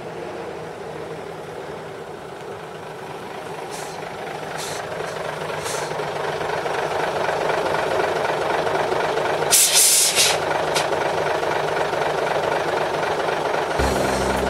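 1966 Scania-Vabis LS 76 truck's 11-litre turbocharged diesel engine running, growing louder as the truck pulls up close, with a few short air hisses and one loud air-brake hiss about ten seconds in. Music comes in near the end.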